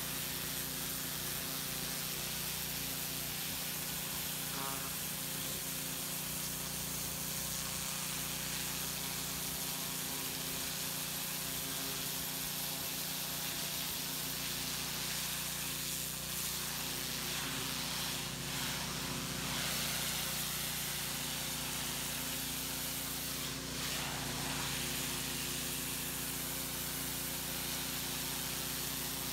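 Pressure washer running steadily: the motor hums under the hiss of the turbo nozzle's jet spraying a brick wall and concrete.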